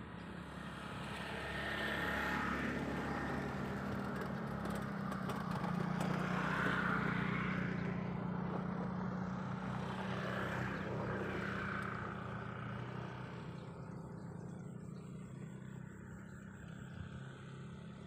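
A motor vehicle engine passing at a distance, a low steady drone that grows louder over the first few seconds and fades away after about twelve seconds.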